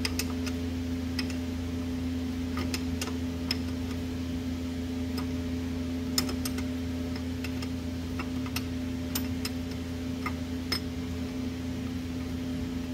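Scattered sharp metal clicks of a wrench working the mounting nuts at the base of a Carter BBS one-barrel carburetor, at an uneven pace, over a steady low hum.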